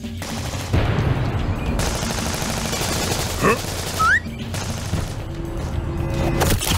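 Rapid machine-gun fire sound effect, a dense run of shots starting about a second in, over background music. A short rising squeak comes about halfway through.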